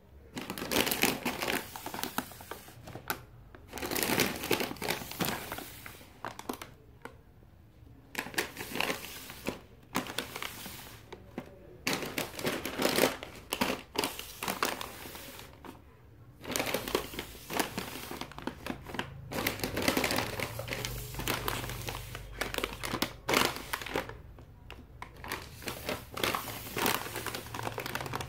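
Plastic foil snack bags crinkling as they are handled and set down in a row, in irregular bouts with short pauses between.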